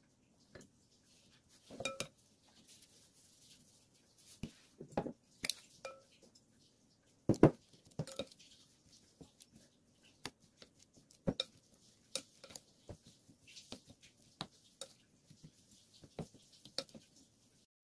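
A wooden spoon mixing barley rice in a glass bowl, with irregular soft knocks and scrapes against the glass. Some knocks ring briefly, and the loudest comes about seven seconds in.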